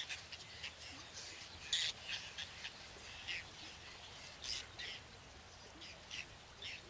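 Whiskered terns giving short, high calls at irregular intervals, faint over a soft background hiss.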